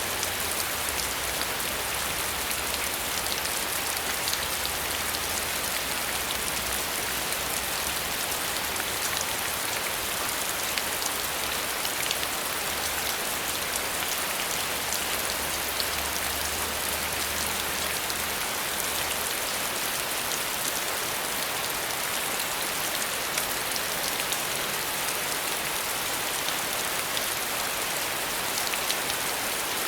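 Steady rain falling, with many fine individual drops pattering on a surface and a faint low rumble underneath for the first two-thirds or so.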